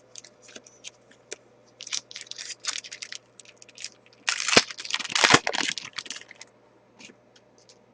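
A trading card pack's wrapper being torn open and crinkled by hand, in two spells of crackling, the second one louder, with a few light clicks before, between and after.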